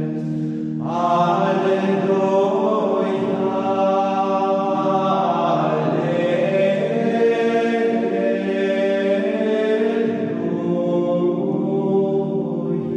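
Latin plainchant sung by a choir, slow held notes that shift in pitch every second or so over steady low sustained tones.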